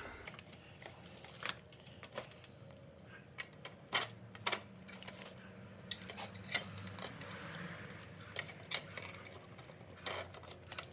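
Irregular light clicks and taps of hard plastic parts being handled and fitted together by hand: a side-mirror camera, its mount and the mirror housing.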